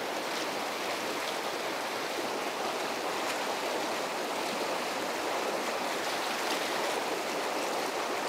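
Fast river current rushing over rocks: a steady, even rush of water.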